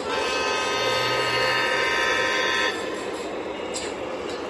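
O gauge model diesel locomotive's electronic sound-system horn blowing one steady blast of about two and a half seconds that cuts off suddenly. Under it runs the steady rumble of model trains on Fastrack track.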